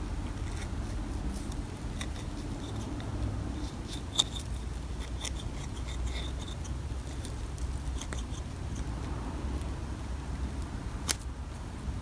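Small scissors snipping and scraping at hair wound around a plastic vacuum brush roll, with the roll handled: scattered faint clicks and snips, a sharper click about four seconds in and another near the end.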